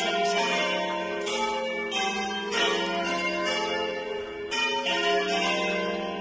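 Church bells ringing in a peal, a fresh strike about once a second over the long ringing of the earlier ones.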